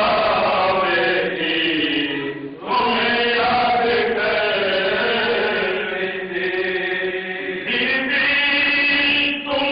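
A group of men chanting a marsiya, a Shia elegy, together without instruments, in long, drawn-out held notes. The voices break off briefly for breath about two and a half seconds in and again near the end.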